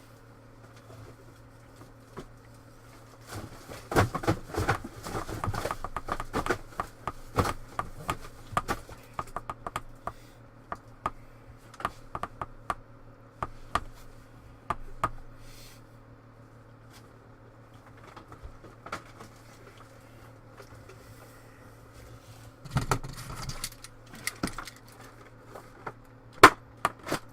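Computer keyboard typing and mouse clicks: runs of quick, sharp clicks with pauses between, over a low steady hum.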